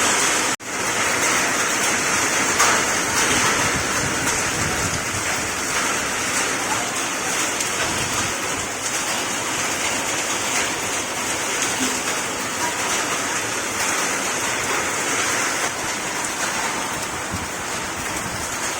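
Hailstorm: heavy rain and hail falling in a steady, dense hiss, dropping out for an instant about half a second in.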